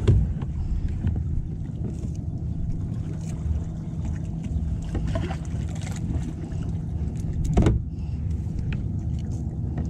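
Knocks and clicks of fishing gear against a plastic kayak hull while a caught fish is handled with a lip grip: two louder knocks, one right at the start and one about three-quarters of the way in, with lighter clicks between, over a steady low rumble.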